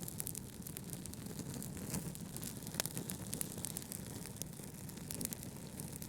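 Wood fire crackling with frequent small snaps and a few sharper pops, over a steady low rumble of brown noise.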